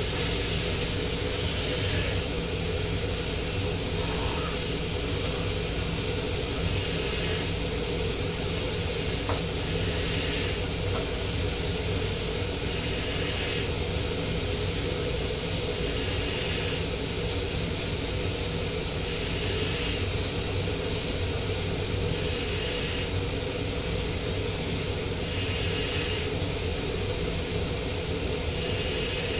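Venison steak sizzling steadily in a hot pan on a gas stove, over a steady low hum.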